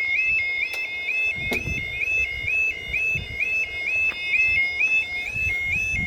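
Automatic half-barrier level crossing alarm sounding its two-tone warble, switching quickly back and forth between two high notes about twice a second. Wind buffets the microphone underneath, with a few sharp knocks.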